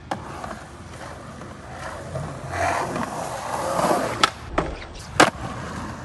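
Skateboard wheels rolling over wet pavement, building in loudness, then a sharp pop of the tail about four seconds in and a loud clack of the board landing about a second later, with the wheels rolling on.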